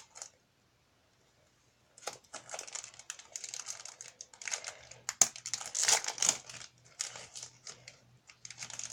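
Foil wrapper of a football trading-card pack being torn open and crinkled. About two seconds in, irregular crackling and rustling starts and runs on, with one sharp click about halfway through.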